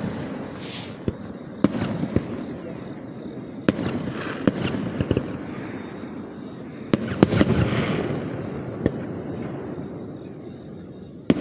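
Aerial fireworks bursting: sharp single bangs every second or two, with crackling after some shells and a quick cluster of bursts about seven seconds in.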